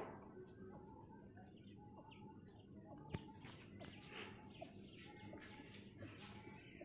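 Near silence: room tone with faint, short bird calls in the background and a light click about three seconds in.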